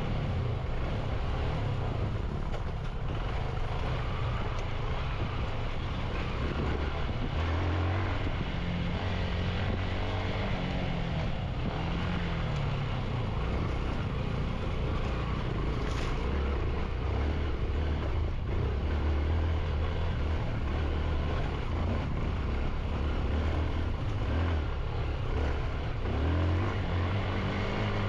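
Motorcycle engine running on a rough trail ride, its pitch rising and falling with the throttle, over a steady rushing noise. A single sharp click sounds about sixteen seconds in.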